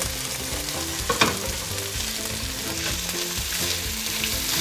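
Gnocchi and vegetables sizzling in a hot frying pan while a spatula scrapes the food in from a second skillet and stirs it. One sharp knock of the spatula on the pan comes about a second in.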